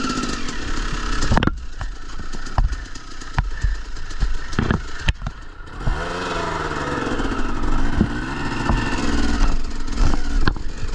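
Motorcycle engine run slowly on the clutch while crawling over rocks, its pitch rising and falling as it is revved, with several sharp knocks and some clatter.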